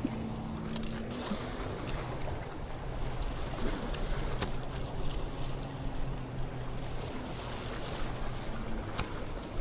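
Boat motor humming steadily over water and wind noise, with a few sharp clicks: about a second in, near the middle, and near the end.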